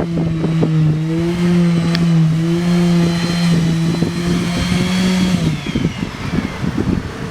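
A motor running at a steady pitch, then shutting off and winding down about five and a half seconds in, with wind buffeting the microphone.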